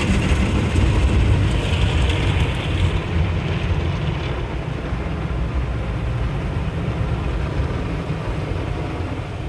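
Automatic car wash tunnel equipment running around the car, heard from inside the cabin: a steady rushing noise over a low rumble, a little louder for the first three seconds.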